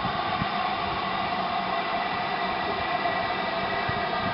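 LMS Black 5 4-6-0 steam locomotive No.45379 rolling slowly in, with a steady hiss of steam from the engine and no exhaust beats.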